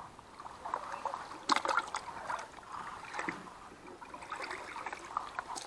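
Small splashes of water and rustling of reeds and grass at the water's edge, with a sharper splash about a second and a half in.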